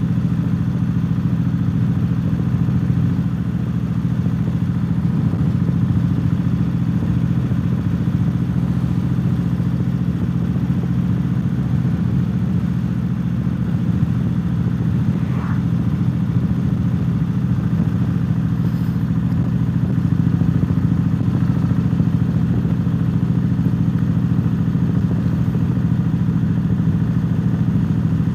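Cruiser motorcycle's engine running at a steady cruising speed, a low even drone with no change in revs.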